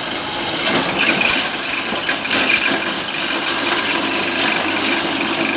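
Household electric corn sheller running under load with maize cobs being fed in: its 2800 rpm motor hums steadily while the drum strips the kernels off in a continuous, dense rattle.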